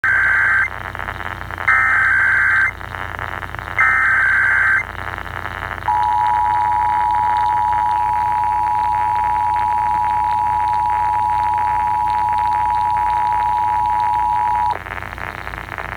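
Emergency Alert System tones received over AM radio with steady static: three short bursts of digital SAME header data, about a second each, then the EAS two-tone attention signal, a steady dual-pitched tone held for about nine seconds before it cuts off.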